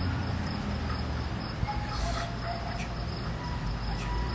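A steady, high insect trill, of the cricket kind, over a low rumble.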